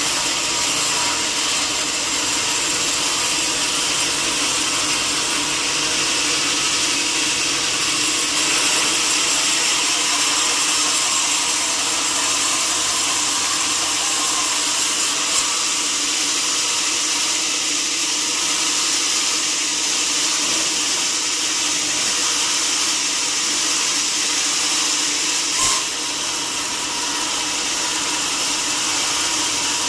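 Sawmill saw machinery running steadily, a continuous whine and hiss of the saw working through wood, with two brief knocks, about halfway through and near the end.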